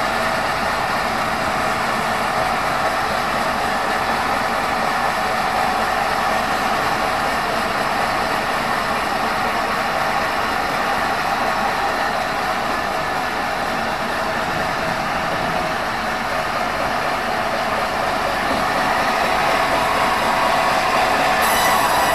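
Steady running noise of a vehicle, with a faint steady tone through it. It grows slightly louder over the last few seconds, and a cluster of high, steady tones comes in just before the end.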